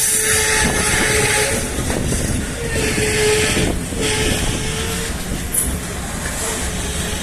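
Loaded freight train rolling past with a steady rumble of wagons on the rails. A single held tone sounds four times at about the same pitch, in short stretches with gaps between them.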